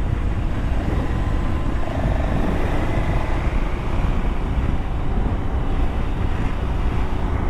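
Motorcycle riding at speed, its engine running steadily under a heavy low rumble of wind on the action camera's microphone.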